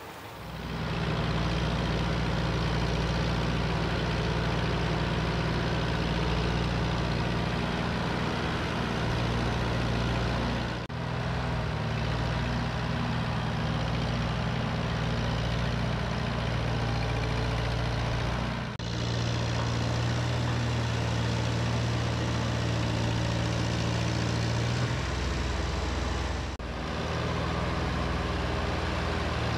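Allis-Chalmers D17 tractor engine running steadily under load as its front loader pushes a pile of hay, with brief breaks in the sound about 11, 19 and 27 seconds in.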